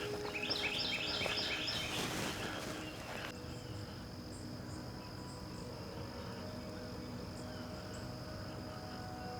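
A bird calls a fast series of about six or seven chirping notes in the first two seconds, over a steady high-pitched insect drone that carries on after the bird stops.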